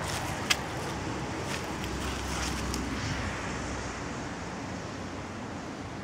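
Steady outdoor background of distant road traffic and wind, with a few light clicks and rustles in the first few seconds, one sharper click about half a second in.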